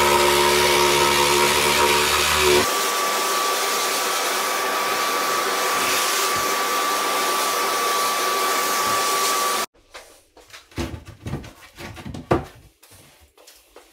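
Cordless jigsaw running as it cuts through a laminate chipboard worktop. About three seconds in it gives way to a vacuum cleaner hose sucking up sawdust, a steady hiss with a thin steady whistle, which cuts off suddenly about ten seconds in. Then a few knocks and scrapes as the cut-out piece of chipboard worktop is handled and lifted out.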